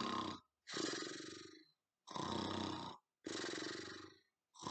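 A woman imitating snoring with her voice: a rough, rasping snore about once a second, four full snores and the start of a fifth near the end.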